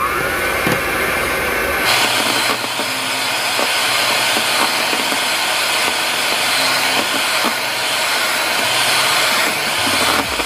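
Electric hand mixer whirring steadily as its twin beaters whip cream in a glass bowl. The motor spins up at the start, and its sound shifts about two seconds in.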